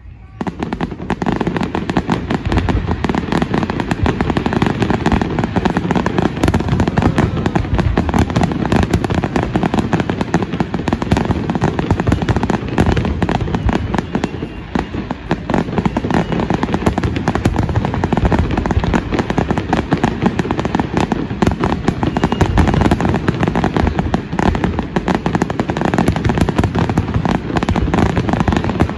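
Fireworks display: a rapid, continuous barrage of aerial shell bursts, bangs and crackling, starting abruptly and loud throughout.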